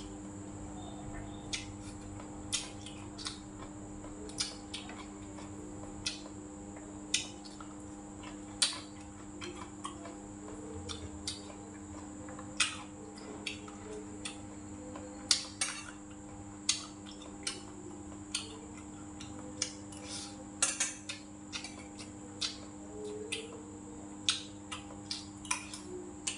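Metal spoon and chopsticks clinking against ceramic bowls and plates while eating, in short irregular clicks about one or two a second over a steady hum.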